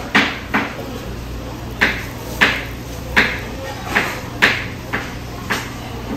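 Kitchen knife chopping on a cutting board: sharp knocks, a quick even run of about three a second at first, then spaced out and uneven. A steady low hum runs underneath.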